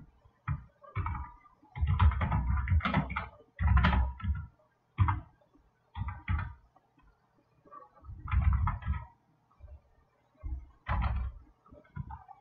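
Computer keyboard typing in irregular bursts of keystrokes, each burst with a dull low thump. A faint steady hum runs underneath.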